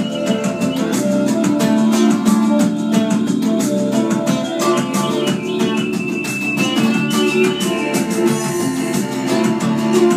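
Acoustic guitar strummed fast and steadily in an improvised piece, the strokes coming thick and even over sustained chords.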